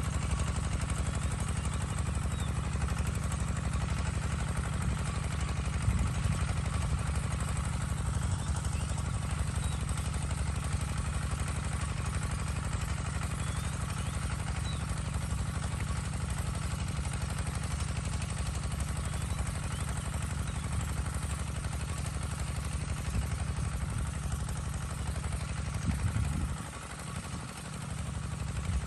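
A vehicle engine running steadily, dipping briefly near the end.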